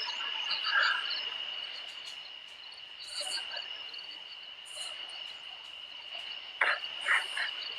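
Insects trilling in one steady, unbroken high-pitched chorus, with a few short sharp clicks or knocks near the end.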